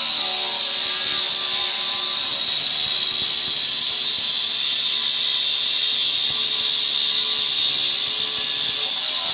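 Handheld electric stone saw with a diamond blade running steadily as it cuts through a granite countertop slab, a continuous high whine.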